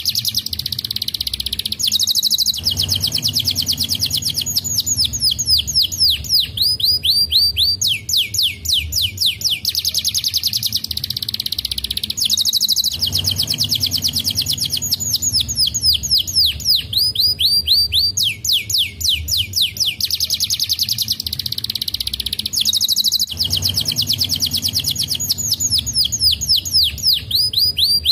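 Domestic canary singing: rapid rolling trills of downward-sweeping whistled notes, one trill after another without a break. The same sequence of trills comes round again about every ten seconds.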